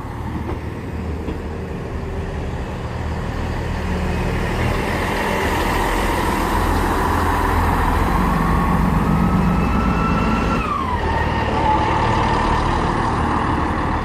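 Class 158 diesel multiple unit pulling slowly into the platform, its engine running with a low rumble. A whine rises gradually, then drops sharply in pitch about eleven seconds in and settles lower.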